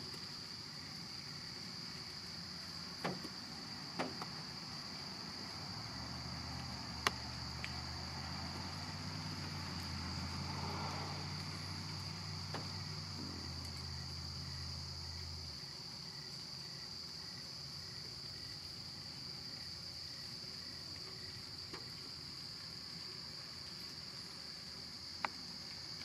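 Steady late-summer insect chorus, a constant high-pitched trill. A low hum comes in about six seconds in and fades out a little past the middle, and there are a few faint ticks.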